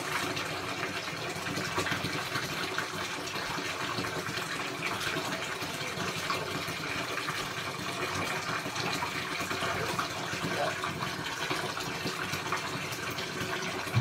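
Bathtub tap running, water pouring steadily into the tub.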